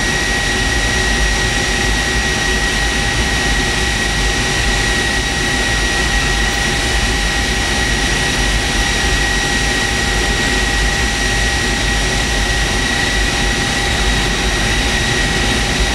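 Aircraft generator set running steadily, powering the wire harness under test: a loud, even roar with a steady high whine.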